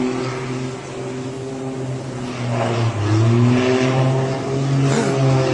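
An engine droning steadily, its pitch dipping and rising a couple of times.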